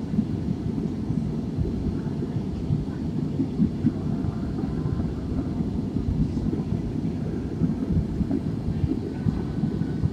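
Jet airliner cabin noise in flight: the steady, deep rumble of engines and airflow heard from inside the cabin at a window seat.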